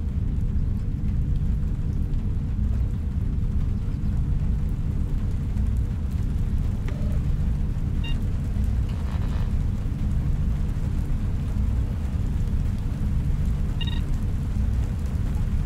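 Deep, steady low drone of a science-fiction room ambience. Two short electronic beeps from an Esper photo-analysis machine come about eight and fourteen seconds in.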